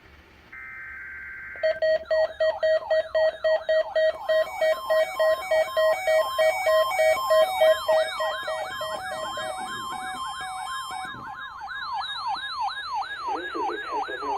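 A short burst of weather-radio data tones, then a loud electronic alert alarm: a falling siren-like sweep repeating about three times a second over pulsing beeps. The beeps stop about ten seconds in while the sweeps go on.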